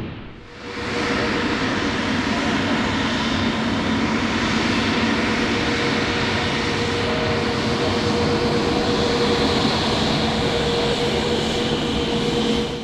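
Jet airliner on landing approach: a loud, steady rush of engine noise with a steady low hum and a higher steady tone running through it, cut off abruptly near the end.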